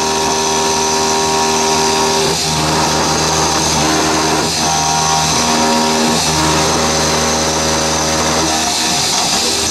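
Milling machine taking a cut in metal with a milling cutter. There is a steady motor whine and cutting noise, with several held tones that shift pitch every couple of seconds.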